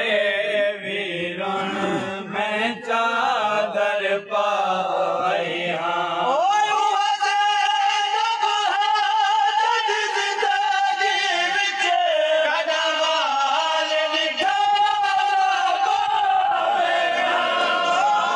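Men chanting a nauha, a Shia mourning lament: a lead singer on a microphone with a group of men singing along. From about six seconds in, the voices hold long notes.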